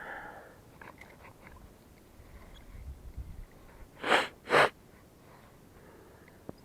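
A person sniffing twice in quick succession, two short sharp breaths about half a second apart, over faint scattered handling sounds.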